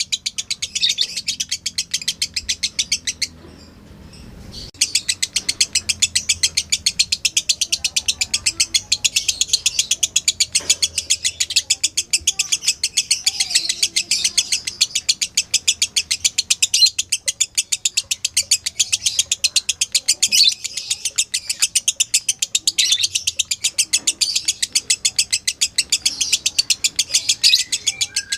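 Lovebird's long 'ngekek' chatter: a rapid, even run of sharp, high chirps that goes on and on, with one short break a few seconds in.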